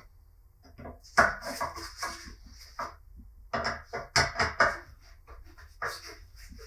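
Irregular bursts of sharp clicks and knocks, hard objects being handled and knocked together, with short pauses between the bursts.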